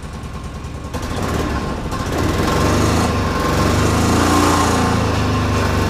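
2005 Polaris Ranger XP 700's fuel-injected twin-cylinder engine running, getting louder about a second in and again about two seconds in, then holding steady. Much of the noise is exhaust, and the engine is not firing well.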